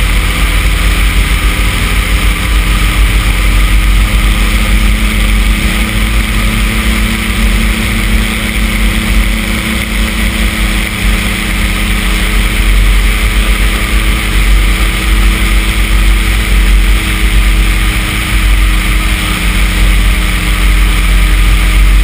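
Flexwing microlight trike's engine running steadily in flight, with wind rushing over the microphone as a heavy low rumble.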